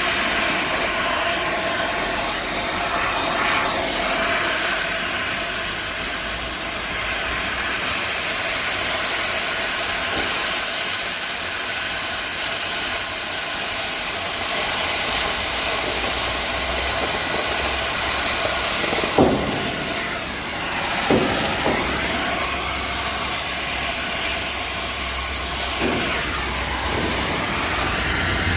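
A steady loud hiss, with a few short knocks about two-thirds of the way through.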